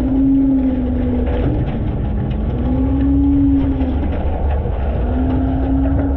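Front-load garbage truck's engine running with a steady low rumble and a droning tone that rises and falls gently in pitch a few times as engine speed changes.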